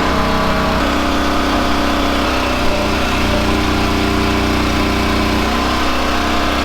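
A small gasoline engine running steadily at a fairly constant speed, its pitch shifting slightly a few times.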